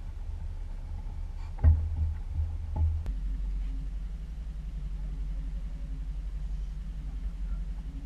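Small outboard motor running with a steady low rumble. Two sharp knocks come about one and a half and three seconds in, and then the engine's note drops to a lower pitch.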